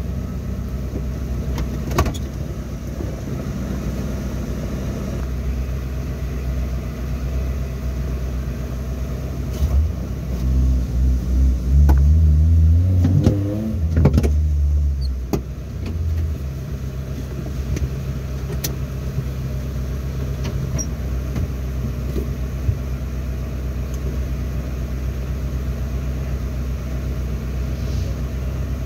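Off-road 4x4 engine idling steadily. About ten seconds in it revs up and down several times for roughly five seconds, then settles back to idle. A few scattered clicks can be heard.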